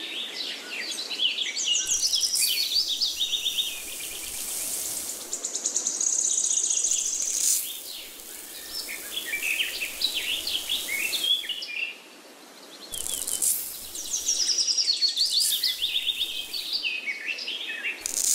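Small birds chirping and twittering in quick, overlapping calls, with a hiss that swells and fades several times.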